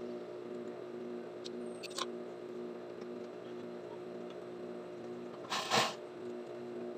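Juki industrial sewing machine motor humming steadily while the machine stands ready, with a couple of light clicks and one short, loud burst of noise about five and a half seconds in.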